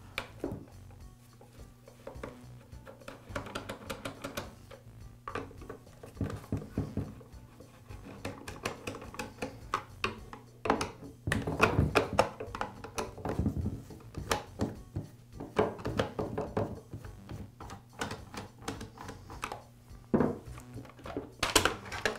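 Clicks, scrapes and knocks of a screwdriver working the screws of a Husqvarna 455 Rancher chainsaw's plastic top cover, busiest in the middle, with the cover handled and lifted off near the end. Soft background music runs underneath.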